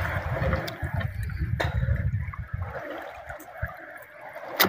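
Water splashing and trickling as a wet fishing net is hauled over the side of a small boat, loudest in the first couple of seconds and then fading, with a sharp knock at the very end.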